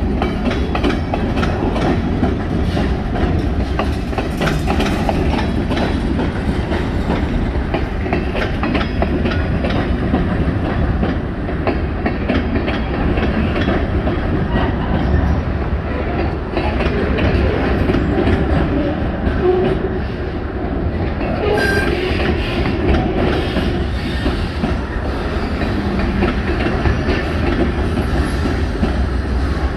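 Freight train cars (covered hoppers, boxcars and gondolas) rolling past on the rails: a steady rumble of wheels with rapid clickety-clack over the rail joints.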